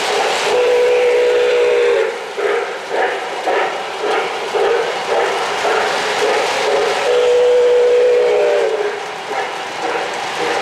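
Model steam locomotive's electronic sound system blowing a chime steam whistle in two long blasts, each dipping slightly in pitch as it ends. Between the blasts comes a rhythmic chuffing, about two beats a second.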